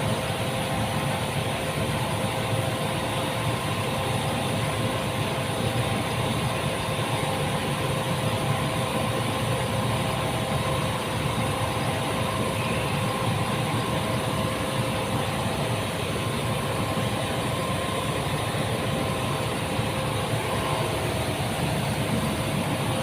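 A motor-driven machine running steadily: a constant hum with a few held tones and no change in speed.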